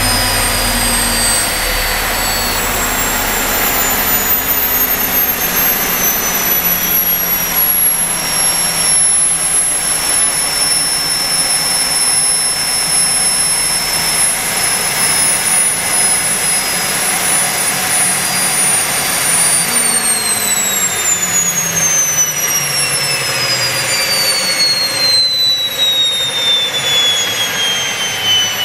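Small gas-turbine engine of a large radio-controlled EC135 model helicopter, giving a steady high whine. About two-thirds of the way through, the whine starts falling steadily in pitch as the engine spools down.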